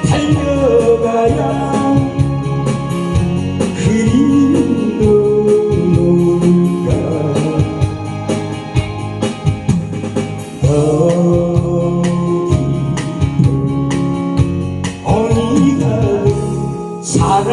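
Korean trot backing track playing an instrumental passage: a gliding lead melody over a steady beat and bass.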